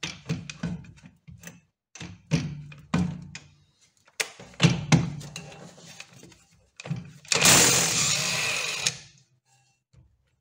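Cordless impact wrench running in one burst of about a second and a half near the end, undoing a 17 mm drum-brake mounting bolt. Before it come several sharp metallic knocks and clicks as the socket is fitted to the bolts.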